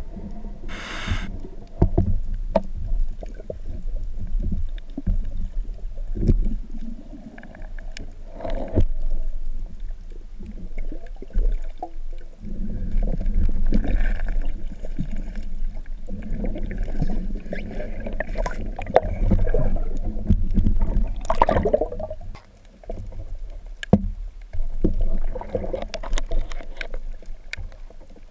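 Underwater sound picked up by a spearfisher's camera as the diver swims with a speargun: a constant low rumble of water moving past the housing, swelling and fading, with gurgles and scattered sharp knocks and clicks.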